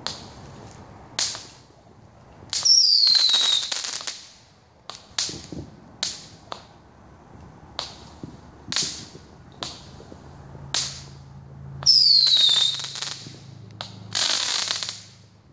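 Fireworks show: a string of aerial shells bursting, about a dozen sharp bangs with crackling tails. Twice a loud whistle falls in pitch with a burst. A faint low steady hum comes in about two-thirds of the way through.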